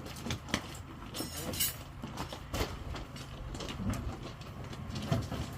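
Construction-site clatter: irregular metal knocks and scrapes over a steady low rumble, with a rasping scrape about a second and a half in.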